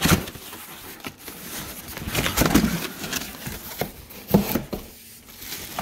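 Cardboard shipping box being opened by hand: flaps scraping and rustling, with a few knocks and handling thumps.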